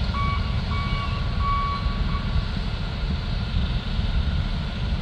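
A vehicle's backup alarm beeps three times in the first two seconds and then stops, over a steady low engine rumble.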